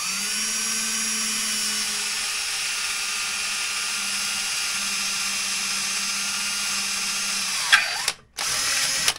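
Cordless drill running at a steady speed for nearly eight seconds, then slowing with a falling whine and stopping. After a brief pause it runs once more for under a second near the end.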